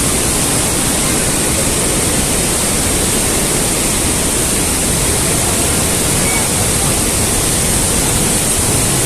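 Steady, loud rush of a mountain stream tumbling through a narrow rock gorge.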